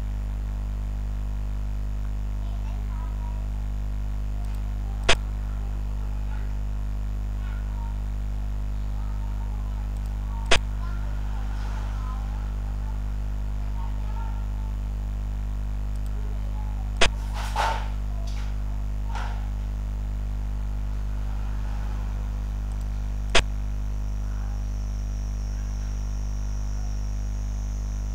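Steady low electrical hum with four sharp clicks about every five to six seconds: the move sound of a xiangqi replay program as each piece is set down.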